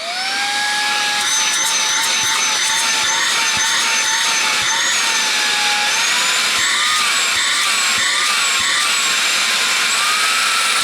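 RedTiger VAC21 cordless handheld vacuum switched on: its motor spins up with a rising whine, then runs steadily at full speed with a strong rush of air, the whine wavering slightly in pitch.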